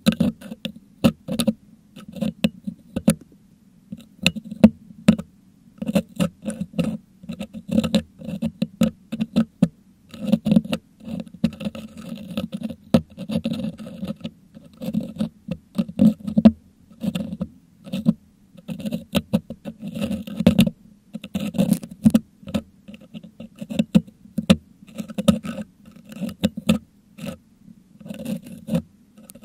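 Metal dental hook picking and scraping crushed meringue out of the grille of a Blue Yeti microphone, right on the mic: a busy, irregular run of scratches and sharp clicks.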